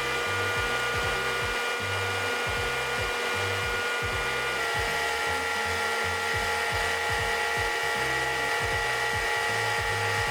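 A small electric kitchen motor, such as a mixer or food processor, running steadily at high speed; its pitch shifts slightly about four and a half seconds in. Background music with a steady beat plays underneath.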